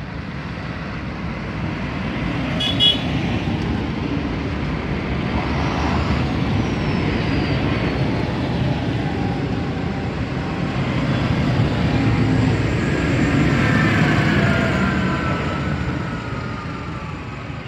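A convoy of John Deere and Claas tractors driving past one after another: diesel engines running and tyres on the road, growing louder as the nearest tractors pass, with falling whines as they go by. A brief horn toot about three seconds in.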